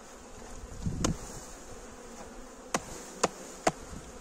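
Honeybees buzzing steadily over an open hive crowded with bees. A dull thump comes about a second in, and three sharp wooden knocks come near the end as a hive frame is handled and lifted out.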